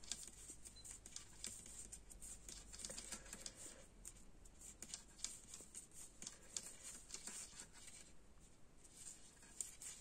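Faint, irregular clicking of knitting needles with the soft rub of yarn as stitches are knitted, over a low room hum.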